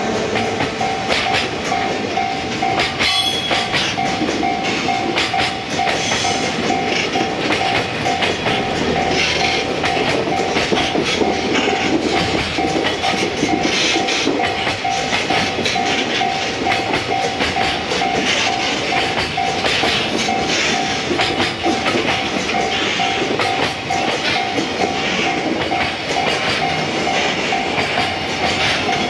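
Container wagons of a freight train rolling past close by, wheels clattering steadily over the rail joints. A steady pulsing tone sounds under the clatter throughout.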